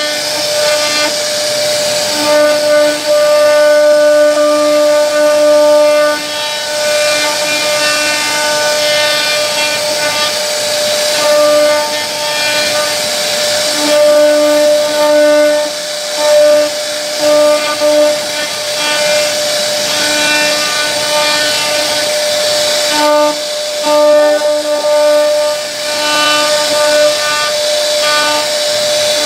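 CNC wood router's spindle running with a steady high whine while its bit carves a relief pattern into a wooden door panel, over the hiss of the cut. The whine swells and fades every few seconds as the cutter's load changes.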